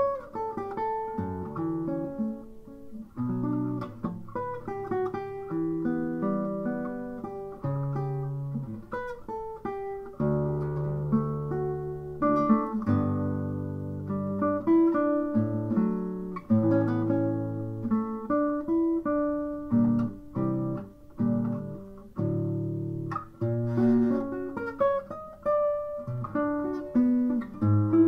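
Solo classical guitar being fingerpicked: a melody over ringing bass notes, with fuller plucked chords at times.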